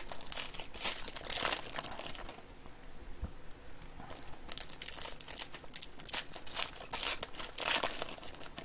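Foil trading-card pack wrappers (Panini Certified basketball packs) crinkling and tearing as they are ripped open by hand. It comes in bursts, with a quieter stretch about two and a half seconds in before the crinkling picks up again.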